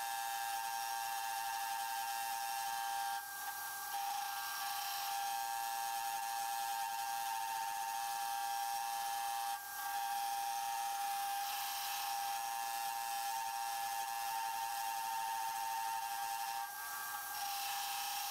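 Homemade metal lathe turning a steel spindle shaft with the cutting tool taking a cut: a steady high-pitched whine over a hiss of cutting. It breaks off briefly three times, a few seconds apart.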